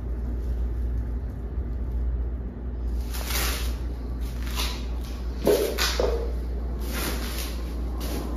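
A steady low hum, with a series of short scuffing noises starting about three seconds in, the loudest a little past halfway.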